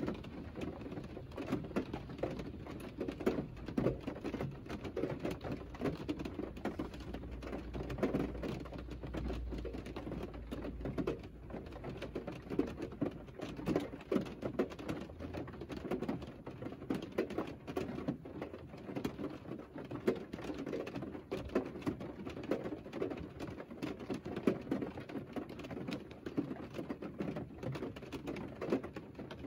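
Rain falling on a parked Mercedes, heard from inside the cabin: a dense, irregular run of small taps from drops striking the car's body and glass. A faint low rumble comes in about eight seconds in and fades out a few seconds later.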